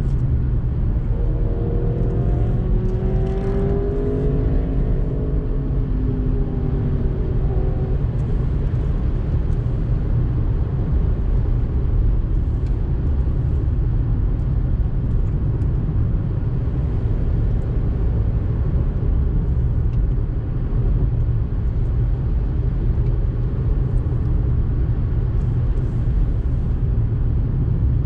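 Steady low rumble of a car driving on a winding road, heard from inside the cabin: tyre and engine noise. Over the first several seconds a higher engine tone glides up and down, then fades about eight seconds in.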